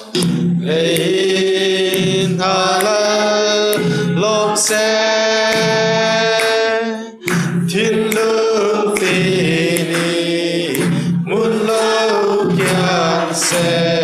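Children singing a song unaccompanied, the melody held on long sustained notes, with a short break about seven seconds in.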